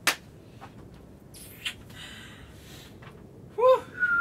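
A sharp slap of a gloved high-five at the start, then quiet rustling. Near the end a short high-pitched vocal exclamation, followed by a whistled tune that begins just before the close.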